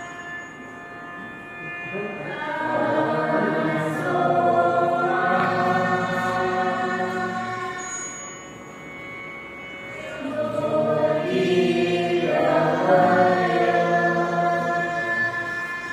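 A group of students singing a school prayer together in unison, in two long held phrases with a quieter breath between them.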